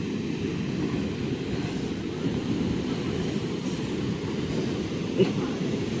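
Steady low rumble of wind buffeting the microphone, mixed with waves breaking on the beach.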